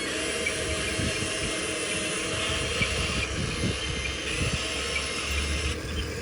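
Radio-controlled model excavator running steadily: a motor and hydraulic pump whine over even mechanical noise, with small scattered ticks.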